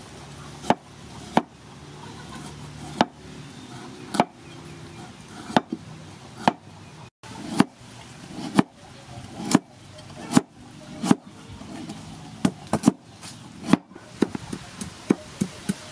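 Knife chopping galangal root on a wooden chopping block: sharp single chops about a second apart, coming quicker in the last few seconds.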